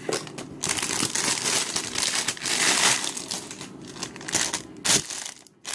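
Plastic packaging crinkling and rustling as it is handled and pulled open, in irregular crackly bursts, stopping briefly near the end.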